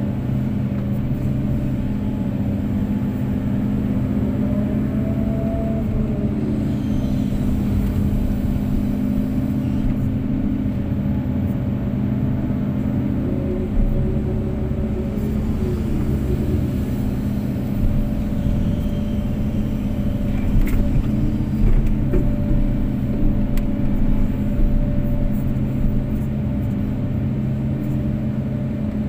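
Kobelco SK250-8 excavator's diesel engine running steadily under working load, heard from the operator's cab. A whine rises and falls twice, about 6 and 15 seconds in, as the hydraulics work the boom, arm and swing while the bucket digs mud, with a few knocks from the bucket and arm later on.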